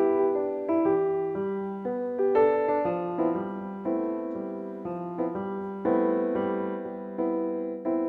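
Background piano music: a gentle melody of single notes and chords, each note struck and left to fade.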